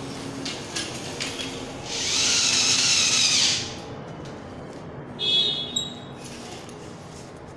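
Corded electric drill running for about a second and a half as it works into a wooden bed panel, then a shorter, higher-pitched burst of the drill about two seconds later.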